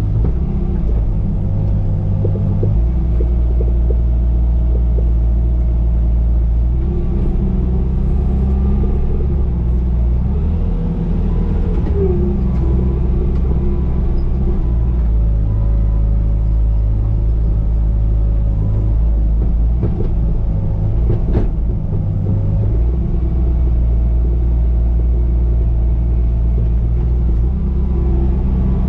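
Bobcat T595 compact track loader's diesel engine running steadily while working, its low note shifting several times as the load changes, with a higher wavering whine over it. There is a single sharp clank about 21 seconds in.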